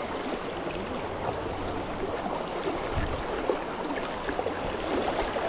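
Fast river current rushing steadily past, a continuous even wash of water.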